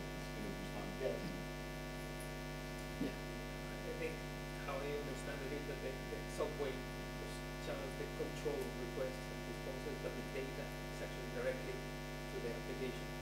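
Steady electrical mains hum from the sound system, with a faint off-microphone voice speaking on and off.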